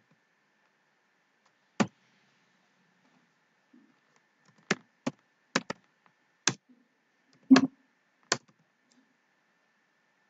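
Computer keyboard keys pressed one at a time in slow hunt-and-peck typing: about eight separate clacks spaced unevenly. The loudest, with a deeper thud, comes about three-quarters of the way through.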